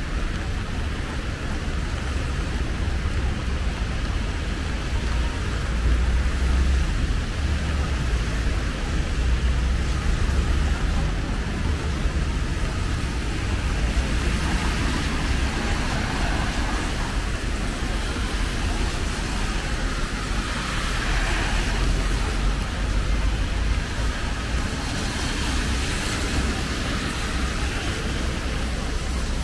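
Heavy rain pelting on an umbrella overhead, a steady even hiss with a continuous low rumble underneath.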